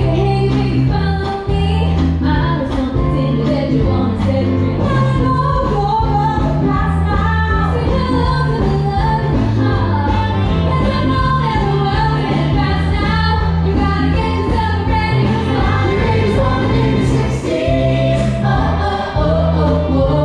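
Live group singing by a cast of men and women on microphones over an amplified backing track with a steady bass line, played loud through PA speakers.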